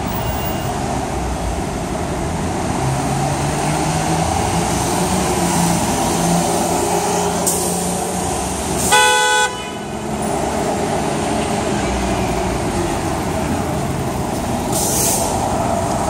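Busy street traffic: bus and car engines idling and creeping in stop-and-go traffic, with one short vehicle horn honk about halfway through. A brief hiss comes near the end.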